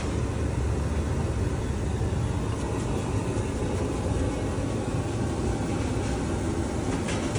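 Papadams frying in hot oil, a steady noisy sizzle over a low rumble, with a few faint crackles near the end.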